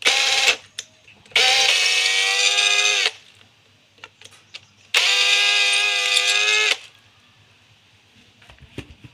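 Cordless power screwdriver (drill/driver) motor whining in three bursts: a short blip, then two runs of nearly two seconds each, its pitch sagging slightly as each run stops. It is backing out two screws from a gas stove's ignition assembly.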